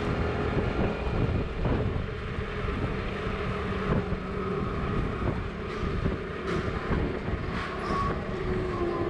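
Vehicle engine running steadily, with wind buffeting the microphone.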